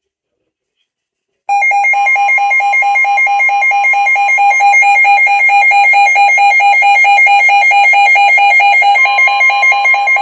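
Emergency Alert System attention tone: a loud electronic alert tone that starts suddenly about a second and a half in and pulses rapidly and evenly on a few fixed pitches.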